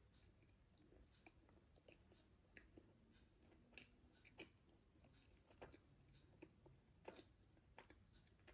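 Very faint chewing of a bite of Snickers bar: soft mouth clicks and smacks, roughly one a second.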